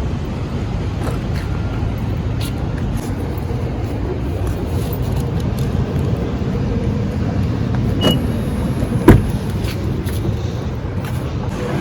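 Steady low rumble of a road vehicle, with a click about eight seconds in and a single sharp knock about a second later.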